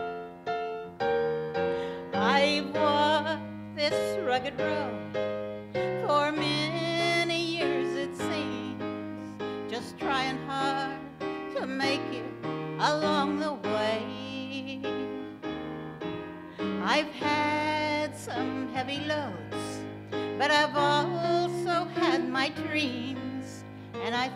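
Music: keyboard chords with a melody above them that wavers on its long held notes.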